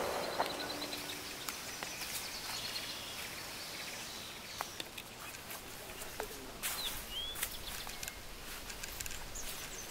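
Forest ambience: a steady hiss with scattered ticks and bird chirps, including a few short whistled bird calls a little after halfway. The tail of background music fades out in the first second.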